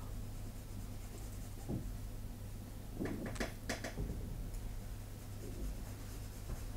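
Soft 6B graphite pencil scratching on drawing paper in short shading strokes, with a cluster of louder strokes about three to four seconds in, over a low steady hum.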